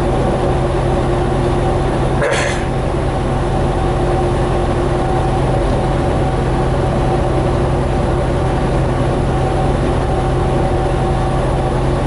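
Semi truck at highway speed heard from inside the cab: a steady engine and road drone with a few constant tones. One short knock sounds about two seconds in.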